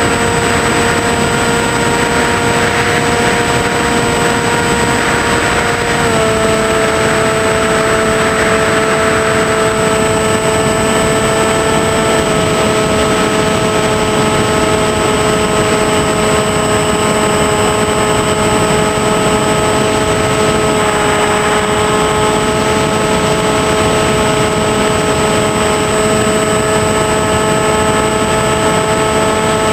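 Small electric RC airplane's motor and propeller whining steadily, heard from a camera on board, with rushing air noise beneath. The pitch steps down a little about six seconds in and shifts slightly again later.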